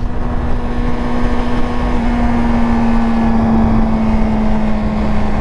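Yamaha R6 sport bike's inline-four engine running at steady revs while riding, with wind rushing over the microphone.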